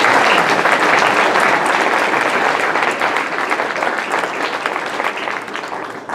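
A roomful of people applauding, many claps running together, dying away near the end.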